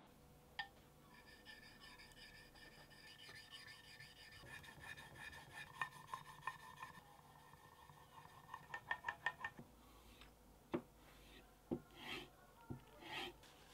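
A small steel blade being honed by hand: faint back-and-forth rubbing of steel on a wet sharpening stone, with a quick run of strokes about two-thirds through, then a few single strokes on a leather strop near the end.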